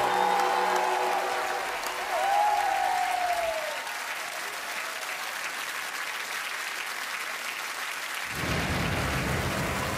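Audience applauding and cheering.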